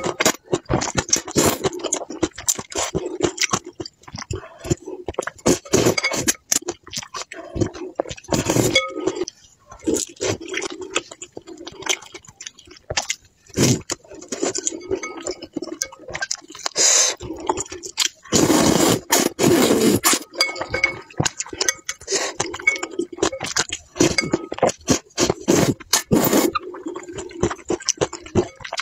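Noodles in spicy soup being slurped and chewed, with chopsticks clicking and clinking against a ceramic bowl. A longer stretch of louder noise comes about two-thirds of the way through.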